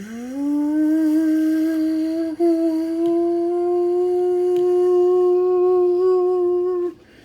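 A man's voice humming an imitation of a jet engine starting up: the pitch rises over the first second, then holds steady for several seconds. It breaks briefly about two and a half seconds in and cuts off near the end.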